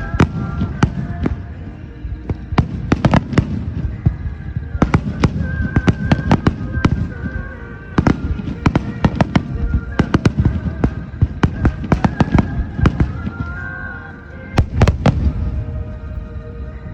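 Fireworks finale: a rapid barrage of shell bursts and bangs, many in quick succession with a couple of brief lulls. Music plays alongside.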